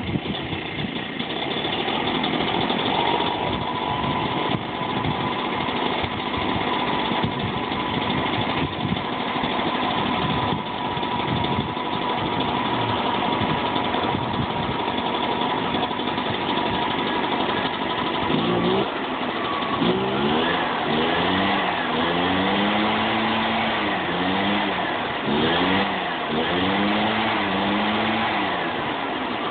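Small Echo two-stroke engine running after a cold start on choke, at first at a steady speed. Past the middle it is revved up and down repeatedly.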